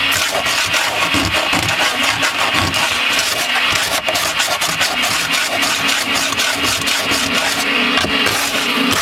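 Shop vacuum running steadily at a loud level, its hose drawing off dust, with the rasp of sanding on wood over it.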